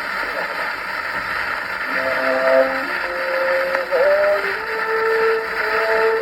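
Early gramophone recording playing an instrumental interlude between verses: heavy surface hiss, then from about two seconds in, long held notes at a few pitches.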